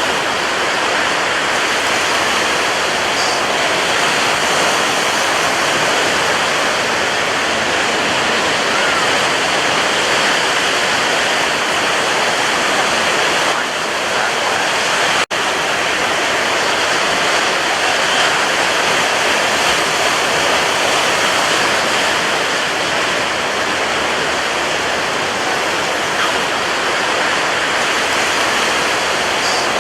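Sea surf: a steady, continuous wash of breaking waves with no clear rise and fall, broken by a momentary gap about halfway through.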